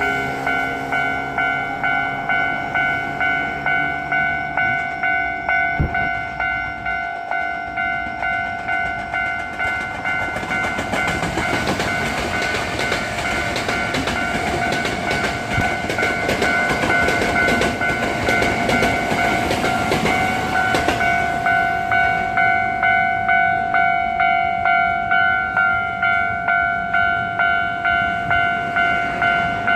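Japanese level crossing warning bell ringing steadily at about two strokes a second. From about ten seconds in, a Hankyu Takarazuka Line electric train runs over the crossing, its wheels rumbling and clattering on the rails for about ten seconds. The bell keeps ringing after the train has passed.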